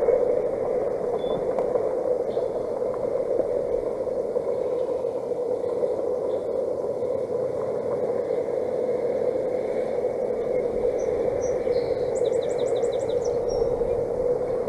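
Steady outdoor noise on the nest camera's microphone, with a bird giving a quick run of about six high chirps near the end.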